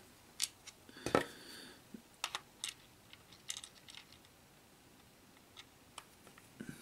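Faint, irregular plastic clicks from the face buttons and thumbsticks of an Xbox 360-style game controller being pressed one after another, a dozen or so sharp clicks with the loudest about a second in.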